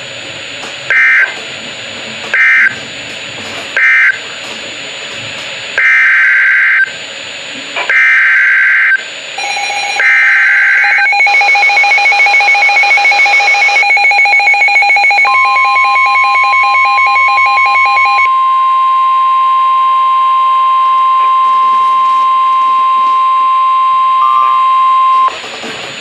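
Emergency Alert System tones on a NOAA Weather Radio broadcast. First three short SAME data bursts end the previous warning, then three longer buzzing data bursts carry the header of the next. From about nine seconds in a rapid electronic beeping starts, and about fifteen seconds in a steady single-pitch alert tone begins; it holds for about ten seconds, announcing a new severe thunderstorm warning.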